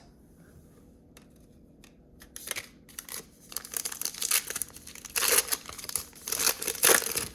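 A trading-card pack wrapper crinkling and being torn open. Scattered crackles begin about two seconds in, with the loudest tearing in two stretches near the end.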